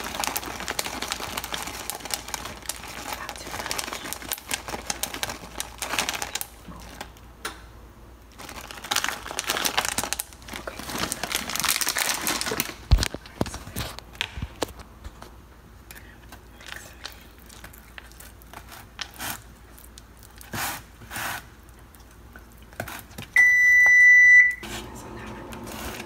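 A crinkly plastic bag of peanut butter chips rustling as the chips are shaken out into a tub of brownie batter. There are two long stretches of crinkling, then scattered small rustles. Near the end comes a single loud electronic beep lasting about a second.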